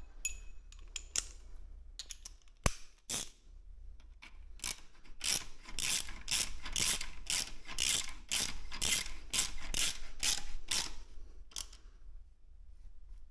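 Ratchet wrench clicking in quick, even strokes, about three a second, running a frame-slider bolt in snug, after a few scattered clicks and a sharp knock.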